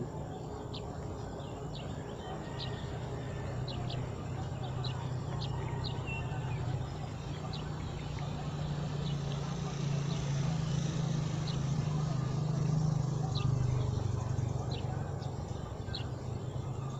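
A low, steady engine hum that swells over several seconds around the middle and then eases, with short high bird chirps scattered throughout.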